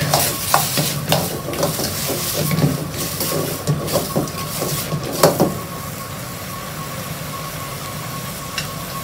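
Metal ladle scraping and knocking against a wok as cubes of winter melon are stir-fried and tossed, over a steady sizzling hiss. The clatter stops about five and a half seconds in, with a last sharp knock, leaving only the hiss.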